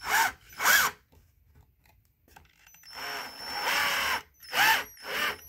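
Cordless screwdriver driving furniture bolts in short trigger pulses, the motor revving up and down each time. There are two quick bursts at the start, a longer run of about a second and a half in the middle, and two more short bursts near the end.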